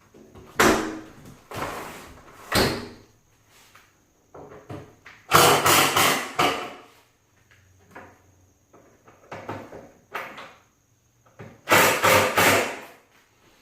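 Sash of a replacement window being slid open and shut in its frame. There are three short knocks early on, then two longer bouts of sliding with knocks around the middle and near the end.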